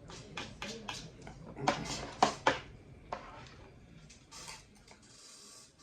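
Close-up eating sounds: a run of short, sharp clicks and crunches, loudest and most bunched about two seconds in, then a few fainter ones.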